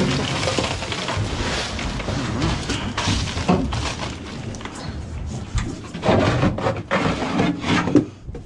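Ice cubes poured from a bag over fish in a plastic tub and pushed around by hand, a steady rattle and crunch. Near the end there are sharper knocks and clatters of plastic tubs and a tray lid being handled.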